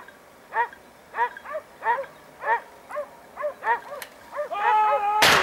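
Hunting dog barking in a steady string of yelping barks, about two a second, which turns near the end into a longer drawn-out bay. Just before the end a loud gunshot cracks out and echoes away.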